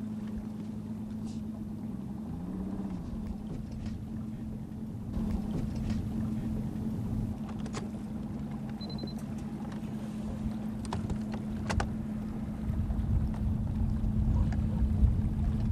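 Boat motor running with a steady low hum over a rumble, with a few light clicks; the rumble grows louder near the end.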